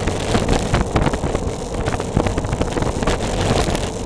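Wind rushing and buffeting over the camera microphone on a bicycle descending at speed. It is a loud, constant rumble with frequent short gusts and knocks.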